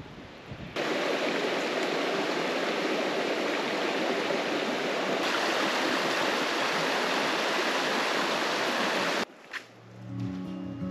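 Steady rush of a stream's running water, starting just under a second in and cutting off abruptly about nine seconds in. Music begins near the end.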